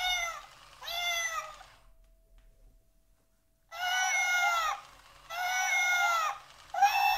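Electronic toy kitten meowing through its small built-in speaker: several thin, recorded-sounding meows, with a pause of about two seconds in the middle.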